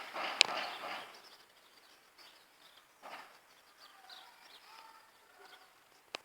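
A sharp click about half a second in, with a second of hiss, then faint bird calls outdoors. Another sharp click comes near the end.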